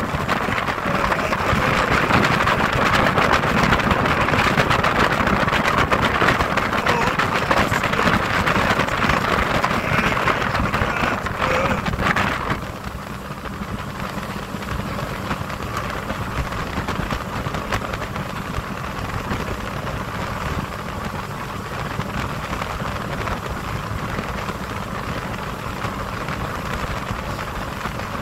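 Motorboat underway: its engine running steadily beneath a loud rush of wind and water, which drops off suddenly about halfway through and leaves a quieter, steady engine hum.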